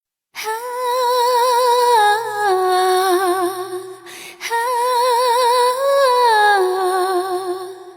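A woman's wordless singing voice humming a slow melody with vibrato in two long phrases, starting suddenly after a brief silence.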